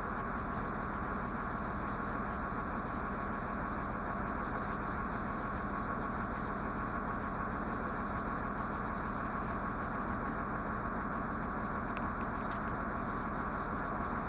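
An engine idling steadily, an even drone that does not change.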